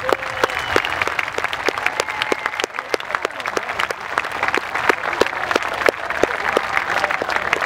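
Large outdoor crowd applauding, dense irregular clapping with a few voices calling out over it.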